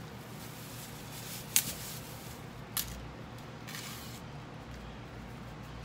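Kitchen handling noises as banana pieces are put into a glass blender jar: a sharp knock about a second and a half in, a softer one a little later, and a brief rustle, over a low steady hum.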